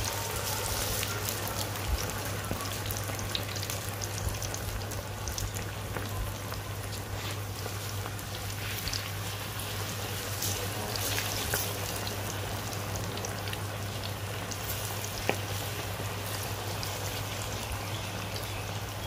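Batter-coated chicken pieces deep-frying in hot oil in an iron karahi: a steady sizzle full of small crackles as more pieces are dropped in. A low steady hum runs underneath.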